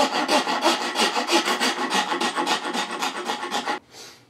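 Round file rasping back and forth in the wooden rifle stock, quick strokes about four or five a second, cutting the slot for the bolt handle. The filing stops shortly before the end.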